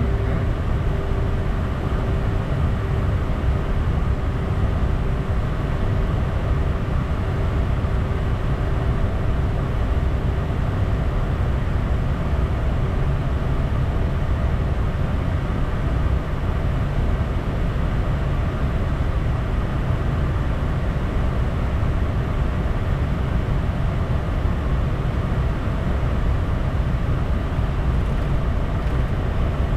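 Steady in-flight noise aboard a Bombardier Challenger 350 business jet: a deep airflow rush and the drone of its Honeywell HTF7350 turbofans, heard inside the aircraft. A faint steady tone fades away about halfway through.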